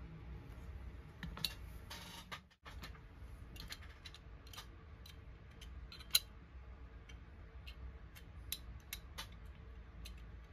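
Light clicks and taps of small die-cast toy truck parts being handled and fitted together by hand. There is a short scraping rustle about two seconds in and a sharper click about six seconds in, over a faint low hum.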